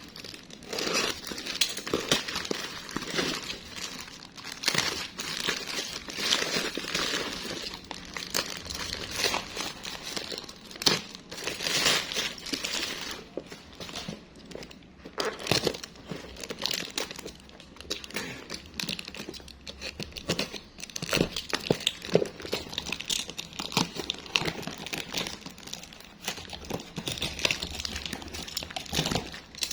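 Plastic shrink-wrap seal being torn off a phone box and crumpled by hand: continuous irregular crinkling and crackling.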